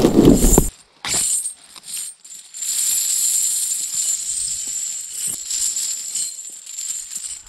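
Heavy steel tractor tire chains jingling and clinking as they are pulled from their bag and dragged out across the ground. In the first second, a cardboard shipping box is handled and torn open.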